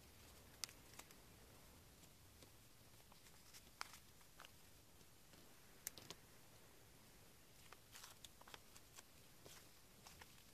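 Near silence with scattered faint clicks and light taps of paper pockets and stickers being handled and set down on a desk, a quick cluster of them near the end.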